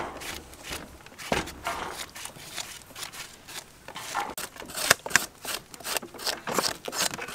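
Knife chopping long beans on a thick wooden chopping block: sharp, uneven knocks, about two a second.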